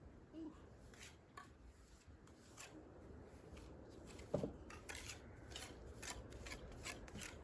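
Faint, irregular light scrapes and clicks, like hand-work on hard material, with one louder knock about four and a half seconds in.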